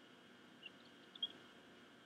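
Bald eagle chicks giving short, high peeps, once about half a second in and again just after a second, while being fed, over a faint steady hiss.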